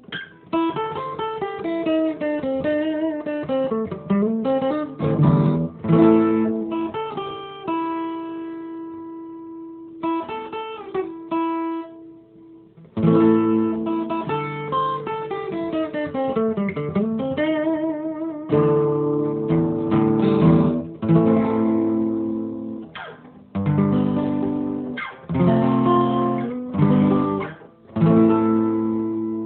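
Solo guitar, most likely acoustic, played on its own without singing. It starts with picked runs and chords, stops briefly about twelve seconds in, then goes back to picking and moves into strummed chords separated by short gaps.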